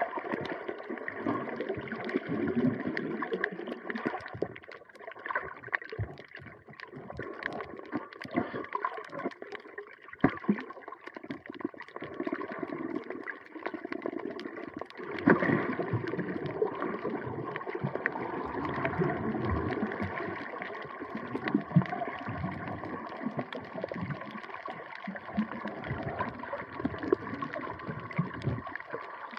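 Water gurgling and sloshing around a camera during snorkeling, with many irregular small clicks and crackles and uneven swells in level.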